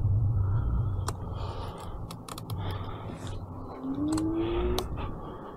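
Low street rumble with several sharp clicks and a short whine that rises in pitch about four seconds in.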